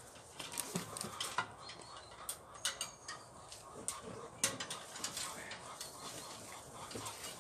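Irregular small clicks and knocks of an old lamppost fixture being handled and worked apart, the loudest knock about four and a half seconds in.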